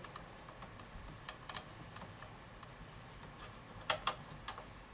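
Faint, scattered clicks of a hand screwdriver turning a fan mounting screw, with two louder clicks about four seconds in.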